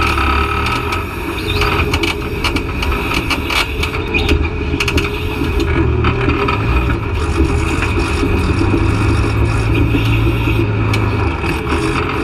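Off-road vehicle's engine running steadily under load on a rocky hill climb, its pitch wavering a little. Scattered knocks and scrapes run through it, typical of tires and underbody working over rock.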